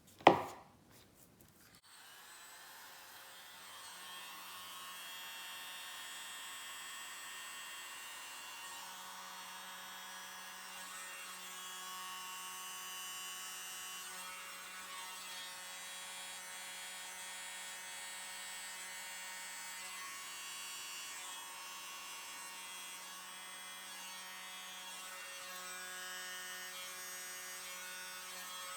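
Tiny handheld electric blower running steadily with a small motor's hum, starting about two seconds in after a sharp click.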